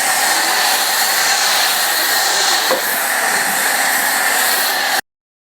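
High-pressure car washer running and spraying through a foam bottle on its gun: a steady loud hiss of spray with a faint motor hum, which cuts off suddenly about five seconds in.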